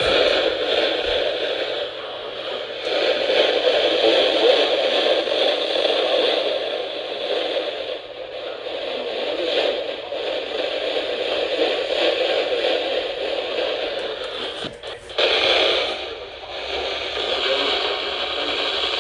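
Weather radio receiver hissing and crackling with static. A brief dip comes about fifteen seconds in.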